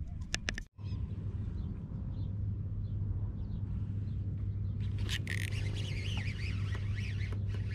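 Birds chirping from about five seconds in, over a steady low hum. A few sharp clicks and a brief dropout come in the first second.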